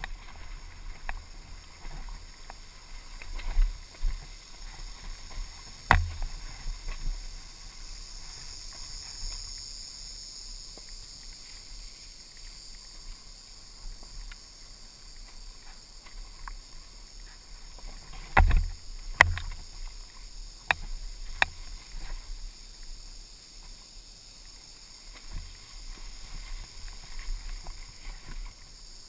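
Dirt bike coasting with its engine off over a rutted dirt track: a low rolling rumble with sharp knocks from the chassis and suspension over bumps, a loud one about six seconds in and two close together a little past halfway. A steady high hiss sits behind it.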